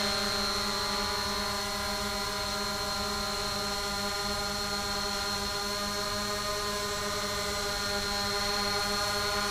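ZLL SG-906 brushless quadcopter hovering, its propellers giving a steady, even buzzing hum with a thin high whine over it.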